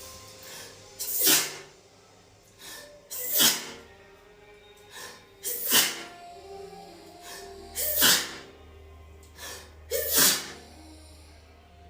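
A woman sneezing five times in a row, about two seconds apart, in a sneezing fit.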